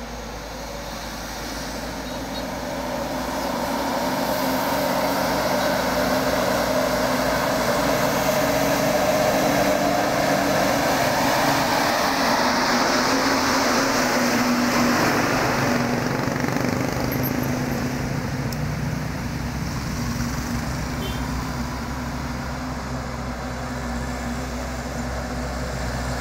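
Loaded cargo truck's diesel engine running as the truck pulls up the bend and passes close by, with tyres hissing on the wet road. The sound swells to its loudest about midway as the truck goes past. Near the end a second truck's engine grows louder as it approaches.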